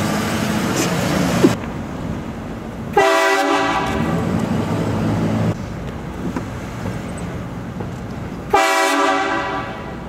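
Train horn mounted on a Ford F-250 Super Duty pickup, blasting twice: a several-note chord starting about three seconds in and lasting a couple of seconds, then a shorter blast near the end. The truck's engine and road noise run underneath.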